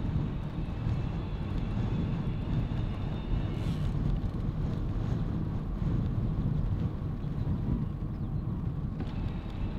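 Wind buffeting the microphone of a moving bicycle on a tarmac road: a steady low rumble. A faint thin high whine fades out a few seconds in and comes back near the end.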